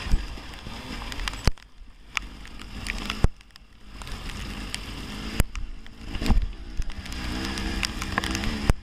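Husqvarna TX 300 two-stroke dirt bike engine being ridden hard, revving up and easing off, dropping away briefly twice. Several sharp knocks cut through it.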